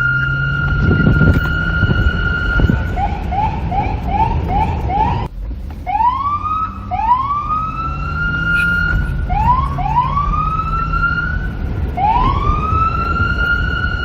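Police car electronic siren: a held high tone, then a fast yelp of short rising chirps, two to three a second. It cuts off suddenly about five seconds in, then comes back as rising wails that climb and hold at the top pitch, over a low rumble.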